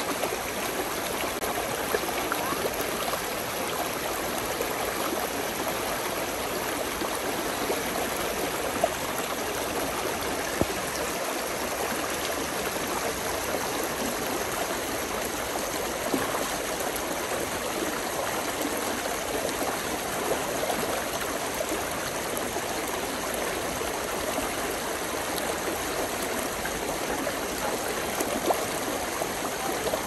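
Brook babbling steadily, an even rush of running water with a few brief louder splashes.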